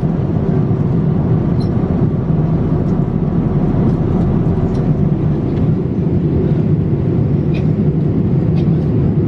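Steady in-flight cabin noise inside a Boeing 787-8 airliner: a low, even rush of airflow and engine sound, with a few faint clicks.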